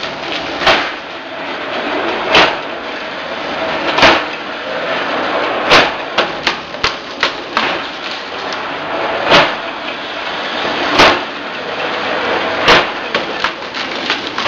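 Bamboo cutting and splitting machine running with a steady noise, chopping through bamboo with a sharp crack about every one and a half to two seconds. Smaller rattling clicks come between the strikes about halfway through and again near the end.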